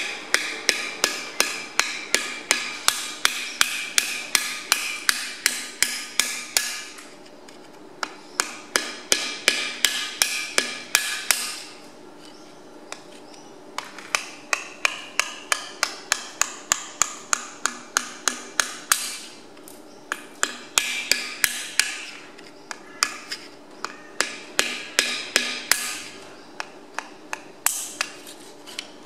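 Steady hammer blows on a steel drift set against a cylinder liner in a Perkins tractor engine's cast-iron block, driving the liner down out of its bore. The blows come about three a second, each with a metallic ring, in runs of several seconds separated by short pauses.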